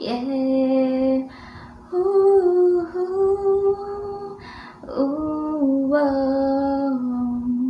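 A young woman singing a slow Tagalog ballad a cappella, holding long notes in unhurried phrases with a short breath about five seconds in. She is singing to test a BOYA BY-MM1 mini microphone on her phone.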